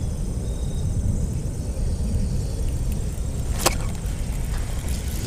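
Steady low wind rumble on the microphone, with one sharp swish of a spinning rod being cast about three and a half seconds in.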